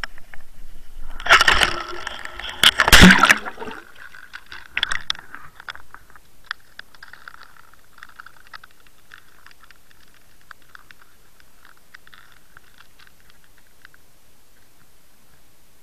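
Dead-bait pike rig with a camera on it being cast: a rushing noise through the air, then a loud splash as it hits the water about three seconds in. After that comes faint underwater bubbling and ticking as it sinks and settles.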